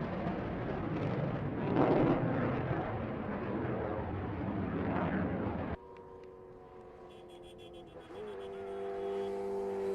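Loud, rushing engine roar that swells twice, then after an abrupt cut a high-revving vehicle engine holding a steady note, its pitch climbing about eight seconds in.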